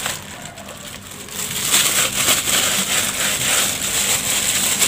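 Clear plastic bags worn as gloves crinkling and rustling as hands squeeze and knead soaked stale rice in a plastic strainer. The sound is quieter at first and fuller from a little under two seconds in.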